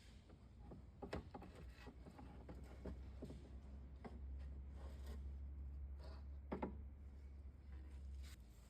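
Faint scattered clicks and light scrapes of hand work on parts, over a steady low hum.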